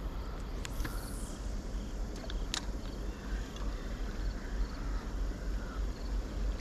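Quiet river-bank outdoor ambience: a steady low rumble, wind on the microphone, with faint insect chirps and a few light clicks in the first few seconds.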